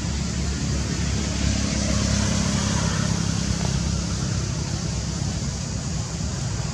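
Steady low rumble with an even hiss over it, unchanging throughout.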